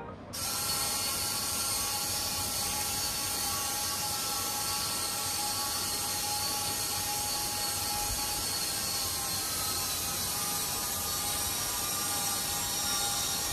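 Small servo motors of a UBTECH kit robot running, a steady mechanical whir with several held whining tones and no clear stops or starts.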